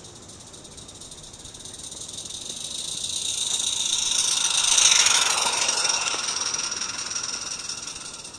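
Roundhouse Katie live-steam garden locomotive passing close by, its exhaust steam hissing. The sound grows as it approaches, is loudest about five seconds in, then fades as it runs away.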